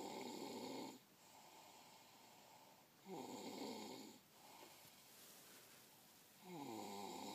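Snoring: three loud snores about three seconds apart, each lasting about a second, with quieter breathing in between.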